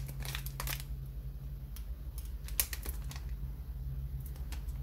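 Plastic blind-bag wrapper crinkling in the hands, with light clicks and taps, one sharper click about halfway through, over a steady low hum.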